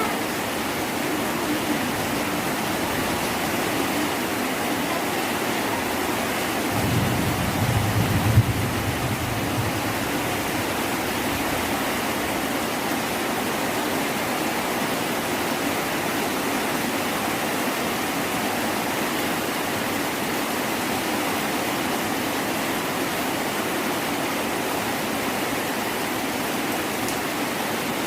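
Heavy rain pouring down in a steady, dense hiss. About seven seconds in, a low rumble swells for a few seconds, with a sharp knock near its end.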